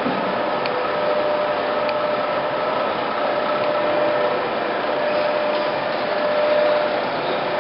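Heavy-duty POREBA TCG 125 lathe running: a steady mechanical whir with a constant whine and a few faint ticks.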